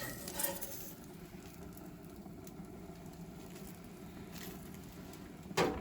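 Sardines sizzling faintly on a hot grill, with a brief louder clatter near the end.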